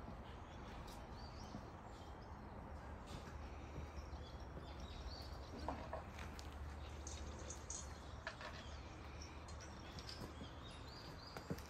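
Faint ambience: a steady low hum, with small birds chirping now and then and a few short clicks, the sharpest about six seconds in.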